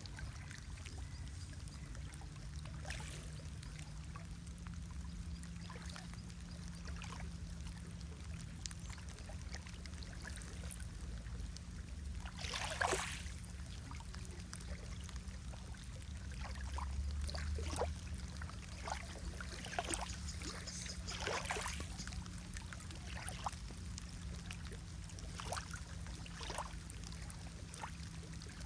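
Lake water lapping and trickling, with small irregular splashes, a couple of them louder about a third and three-quarters of the way through, over a steady low hum.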